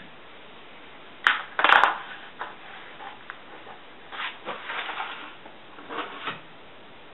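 Kitchen-counter handling noises: a sharp knock and a brief crunching clatter about a second and a half in, the loudest part, then a plastic gallon milk jug's cap being twisted on with small scrapes and knocks, and the jug set down and pushed across the counter near the end.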